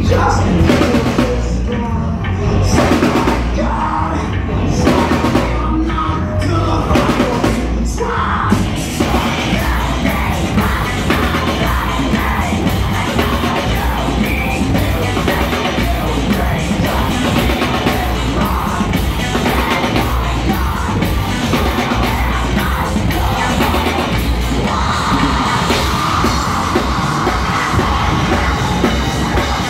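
Live heavy metal band playing loud: pounding drum kit and distorted electric guitars with shouted vocals. Separate drum hits stand out for the first several seconds before the full band fills in, and a held high note comes in near the end.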